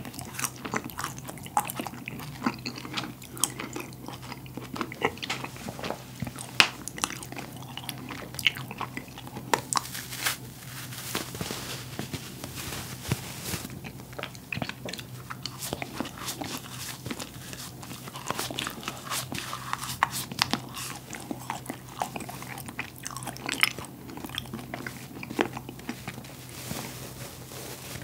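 Close-up chewing of cotton candy, with a dense run of small crisp crackles as pressed cotton candy is pulled apart and squeezed by hand.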